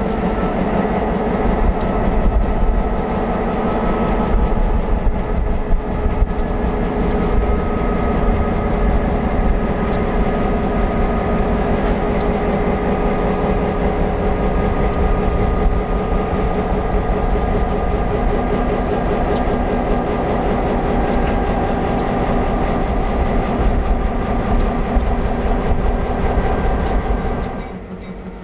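EMD F7A diesel locomotive's 16-cylinder 567 two-stroke diesel engine running at idle just after startup, a steady low drone with sharp ticks every second or two. It drops much quieter near the end.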